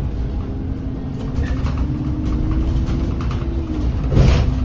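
Bus engine and road rumble heard from inside the cabin while the bus drives along, with a faint steady whine about two seconds in and a short, louder rush of noise near the end.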